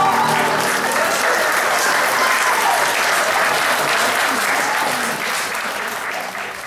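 A small audience applauding at the end of a song, with a voice or two calling out over the clapping. The applause fades out near the end.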